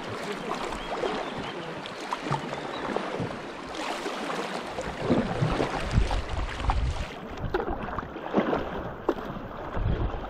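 River water splashing and rushing against a kayak as it is paddled, with the splashes of paddle strokes; stronger low thumps come in the second half.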